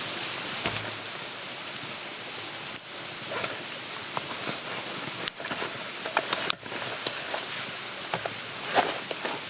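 Wood campfire burning: a steady hiss with irregular sharp crackles and pops.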